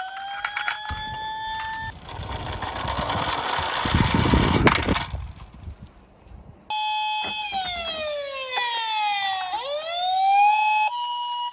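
Toy siren sounds: a rising wail, then a rumbling rattle with sharp clicks for about three seconds as die-cast toy cars roll down a slope. A new siren then cuts in, falls, swoops back up, and switches to a two-tone hi-lo near the end.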